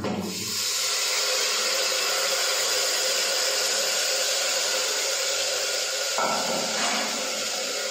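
Chana sizzling in hot oil in a pan as it fries: a loud, steady hiss that starts abruptly as the chana goes in.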